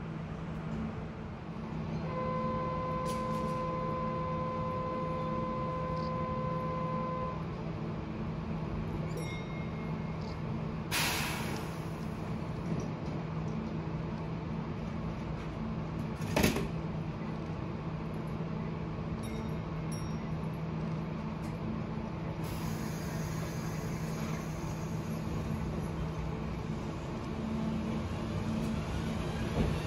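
A train standing with its equipment humming steadily. A steady buzzer-like tone sounds for about five seconds, a sharp hiss of air comes a little after the middle, and a single clunk follows a few seconds later.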